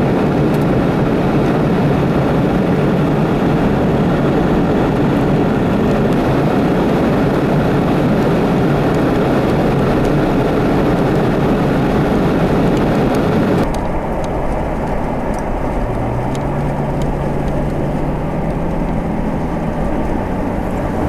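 Steady road and engine noise from inside a moving car on an icy interstate. About two-thirds through it cuts to a quieter traffic hum, where a low engine tone rises slightly and then holds.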